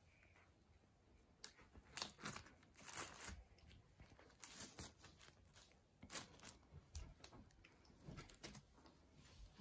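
Homemade clear slime being stretched and squeezed by hand, giving faint, irregular crackles and small pops.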